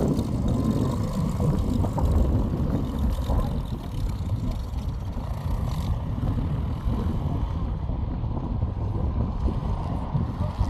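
Snowmobile running under way, a steady low rumble.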